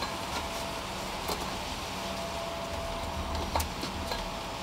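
A few light clicks and taps as a serpentine belt is worked around the alternator pulley, over a steady background hum with a faint high whine that comes and goes.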